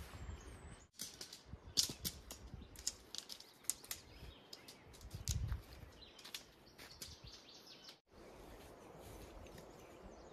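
Nylon tent fabric rustling and flapping, with quick clicks and snaps of tent poles and clips, as a dome tent is pitched. The audio breaks off briefly twice, and for the last two seconds a steady rush of water from rapids is left.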